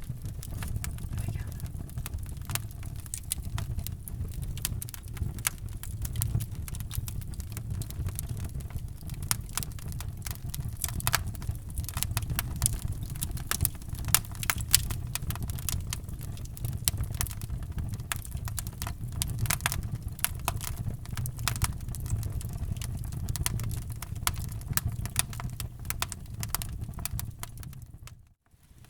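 Wood fire in a fireplace crackling, with irregular sharp pops over a steady low rumble of the flames. The sound cuts out for a moment near the end.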